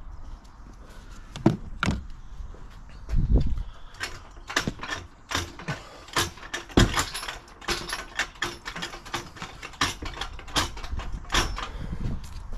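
Metal hand tools clicking and clattering in a car's engine bay: irregular sharp clicks, sparse at first and coming thick and fast from about four seconds in.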